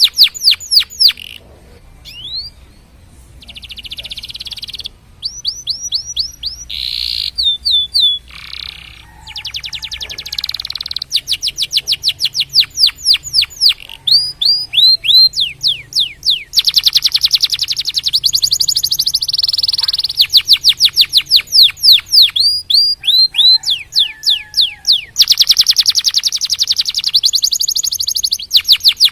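Domestic canary singing: fast trills of repeated, falling whistled notes that change speed and pitch from phrase to phrase, with a few short pauses between phrases.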